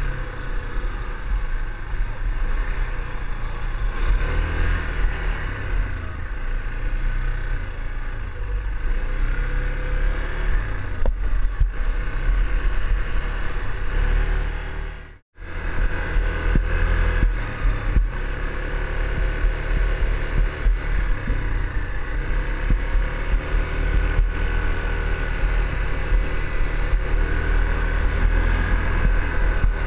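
Yamaha ATV engine running as the quad is ridden along a dirt trail, its pitch rising and falling with the throttle. The sound cuts out for an instant about halfway through.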